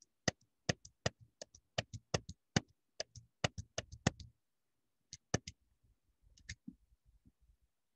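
Rapid clicking of a computer mouse button, about five clicks a second for roughly four seconds, then a pause and a few scattered clicks, as the slide list is stepped down through its scrollbar.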